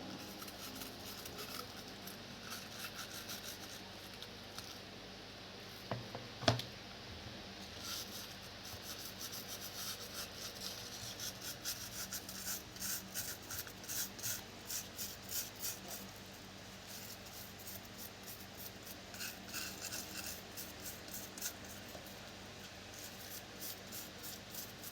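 Faint hand rubbing or scraping in a run of short, even strokes at about two a second, with a single sharp knock about six seconds in.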